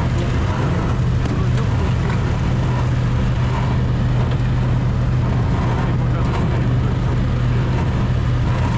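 Snowmobile engine running at a steady pitch, heard from on board the moving machine, with a constant low hum.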